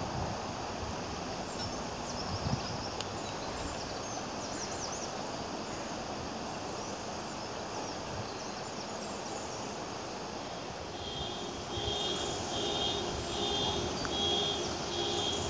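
Steady rush of river water running over shallow rapids, with a few high chirps in the first few seconds. From about eleven seconds in, a repeating beep sounds roughly twice a second.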